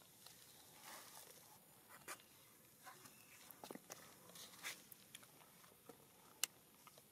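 Near silence with a few faint, scattered clicks and rustles, and one sharper click near the end.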